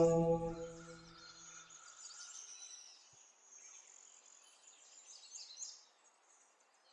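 The final held note of a man's Quran recitation fades out within the first second. It leaves faint twittering of small birds, short chirps that stop about a second before the end.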